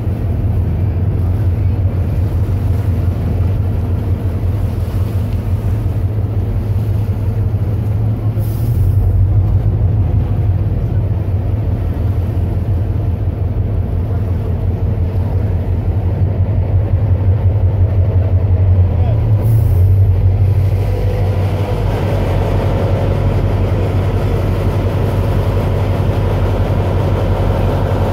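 Steady low rumble of a boat's diesel engine, with wind buffeting the microphone and water around the hull; the rumble swells briefly twice. About three-quarters of the way through, a steady higher engine whine joins in.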